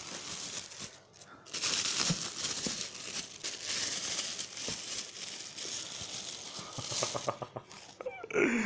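Paper packaging crinkling and rustling as a new pair of track spikes is unwrapped from its box, with many small crackles and two brief lulls.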